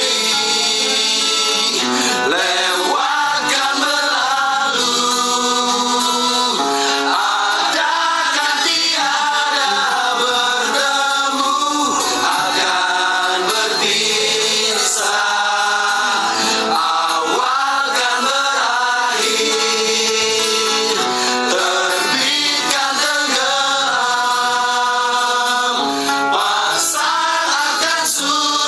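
Background music: a song with singing, possibly including group vocals, over instruments.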